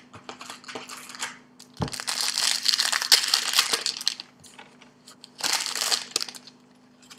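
Plastic trading-card pack wrapper crinkling and crackling as it is torn open. There is a soft thump about two seconds in, then a long stretch of crinkling and a shorter burst a little over five seconds in.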